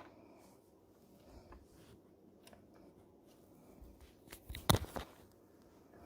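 A few faint clicks, then a quick cluster of sharper clicks and knocks about three-quarters of the way in, like something small being handled; no motor running.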